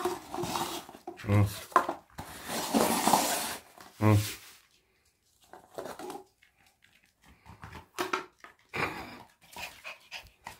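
Paper cups slid and shuffled across a wooden floor, then a Yorkshire terrier sniffing and nosing a paper cup over, with scattered light taps and clicks.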